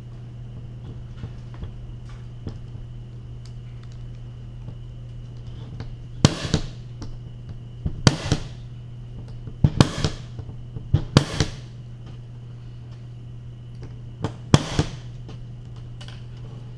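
Cat5 punch-down tool snapping as it seats the cable's wires into the connector's contacts and trims the ends with its blade: a series of sharp clacks from about six seconds in, several in close pairs, over a steady low hum.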